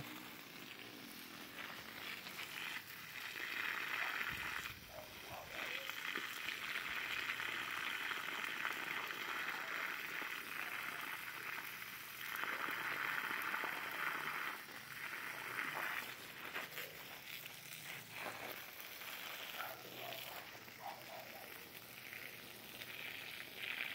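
Water from a garden hose splashing onto soil and leaves, a steady hiss that swells and fades as the stream is moved around, loudest in stretches through the middle.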